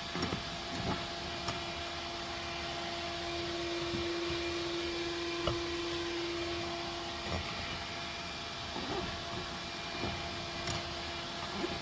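A steady mechanical hum, with light knocks and clicks of handling scattered through it.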